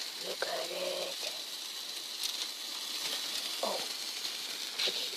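Burning ground fireworks hissing steadily, with a few sharp crackles.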